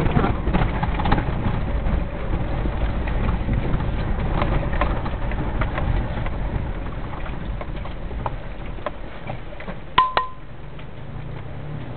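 Low rumble inside a vehicle's cabin, slowly fading, with scattered light ticks; about ten seconds in, a short high beep with two sharp clicks.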